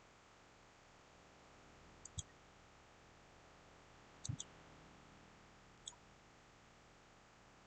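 Computer mouse buttons clicking against faint background hiss: two quick pairs of clicks about two and four seconds in, then a single click near six seconds.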